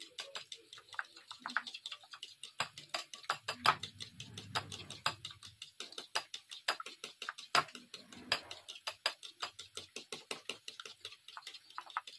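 A utensil stirring a creamy mayonnaise-and-milk sauce in a bowl, clicking against the bowl in a quick, even rhythm of about seven or eight strokes a second.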